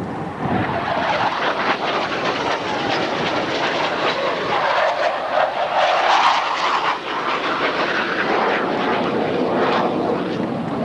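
Blue Angels F/A-18 Hornet jets flying in a display, their twin turbofan engines making a loud, broad roar. The roar swells about half a second in and is loudest around the middle.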